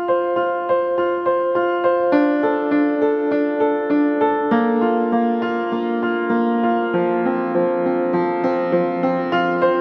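Background music: a gentle piano or electric-piano piece playing steady, evenly paced notes.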